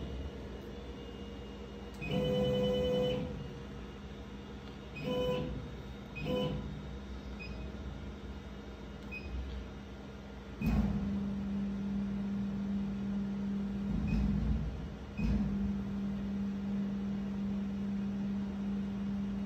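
Stepper motors of a Thunder Nova CO2 laser cutter whining as the laser head and gantry are jogged with the arrow buttons to check the axes: three short higher-pitched moves early on, then a long steady lower hum of slower travel from about eleven seconds in, stopping briefly twice. A few faint short beeps come between the moves.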